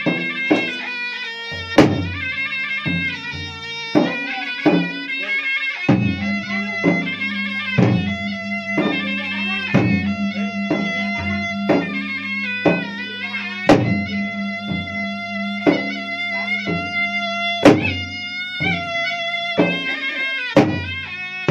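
Bugis-Makassar gendang ensemble: two double-headed barrel drums beaten with a stick and bare hands in quick, uneven strokes with a few sharp loud accents, under a reedy, sustained melody from a pui-pui shawm. A low steady drone comes in about six seconds in.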